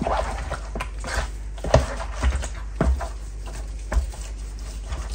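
Raw spice-coated chicken pieces being turned and rubbed by a gloved hand in a plastic tub: irregular wet slaps and squelches, a few of them sharper and louder.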